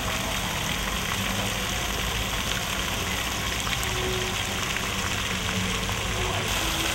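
Fountain jets splashing into a garden pool, a steady rush of falling water.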